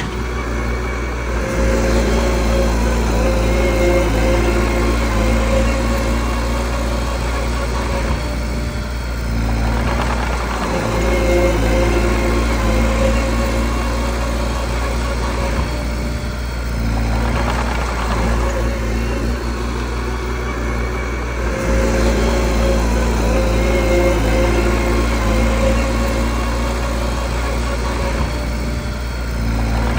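A small bulldozer's diesel engine running continuously, its note swelling and easing every several seconds as the load changes.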